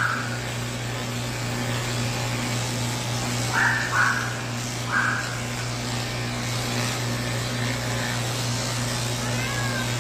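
Cordless electric pet clippers running with a steady hum, the blade shaving matted fur off a cat. A few brief higher-pitched sounds break in near the start and about four and five seconds in.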